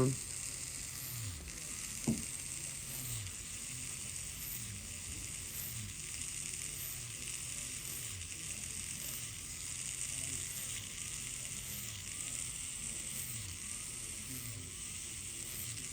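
Motorized FUE punch extracting hair grafts from the scalp: a steady hiss with a faint pulse repeating about every 0.7 s. A single click comes about two seconds in.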